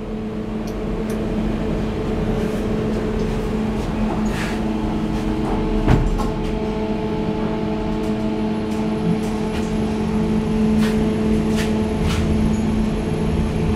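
A 2014 Kone passenger elevator's doors closing and the car running between floors: a steady hum with several held tones, and a single knock about six seconds in.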